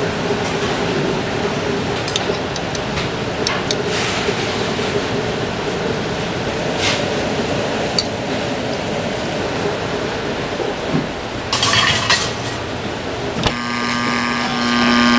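Light clinks of plates and utensils over a steady kitchen hum as fish is plated. Near the end there is a sudden knock, then a steady humming tone as a Rational CombiMaster Plus XS combi oven runs.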